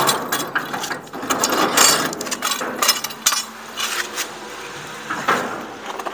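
Old steel concrete mixer hauled on its wheels over brick paving with a bamboo pole: irregular metal clanks and rattles, busiest in the first three seconds, with a further knock about five seconds in.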